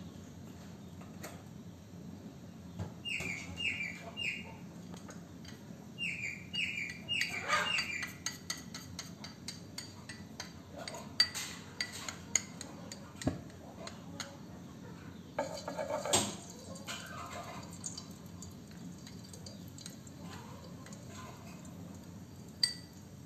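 A kitchen utensil scraping and clinking against a ceramic bowl as food is worked around and scooped out, in irregular taps with a few sharper clinks and a short clatter in the middle.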